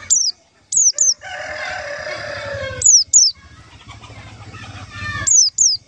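White-eyes (pleci) calling: seven short, sharp, high notes, each falling quickly in pitch, mostly in pairs about a quarter second apart and repeating every two seconds or so. A rooster crows in the background starting about a second in.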